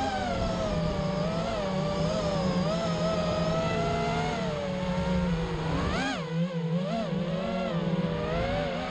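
FPV mini quadcopter's motors and propellers whining, the pitch wavering up and down constantly with the throttle, with a sharp surge and drop about six seconds in.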